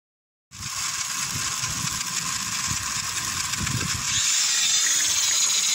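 Small battery-powered electric motors and gearing of homemade model tractors running under load, a steady high buzz with irregular low knocks beneath, starting about half a second in and getting a little louder about four seconds in.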